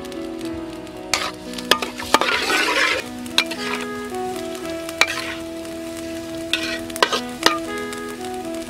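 Chopped garlic sizzling in hot oil in a steel wok while a metal spatula stirs it, scraping and tapping against the pan several times.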